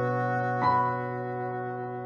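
Instrumental music on a keyboard-type instrument: a held chord, with a new note struck a little over half a second in, then fading away.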